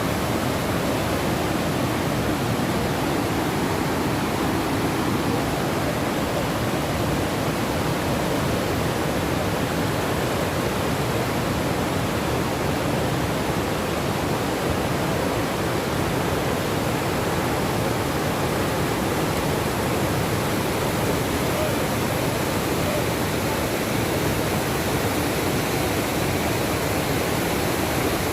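Waterfall: steady, even rushing of falling water.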